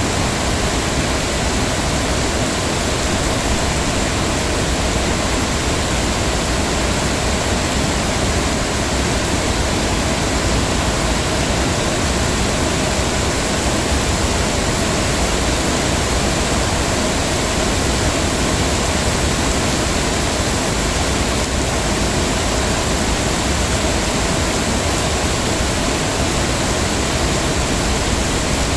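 Heavy rain falling steadily, a dense even hiss with no single drops standing out.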